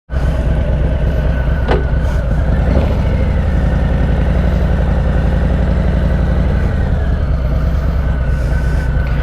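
Harley-Davidson Softail Slim's Milwaukee-Eight V-twin engine running steadily, with one short sharp click a little under two seconds in.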